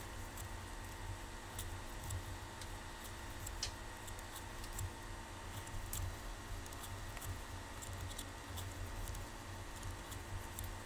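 Knitting needles clicking faintly and irregularly, with light rustling of cotton yarn, as stitches are cast on by hand with the cable cast-on. A low steady hum lies underneath.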